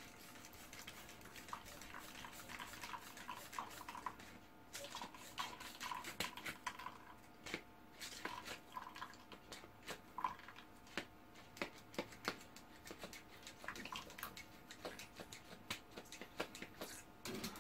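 Portable hand-pump espresso maker being pumped, its piston giving faint, irregular clicks while espresso drips into a titanium cup, some drops ringing briefly.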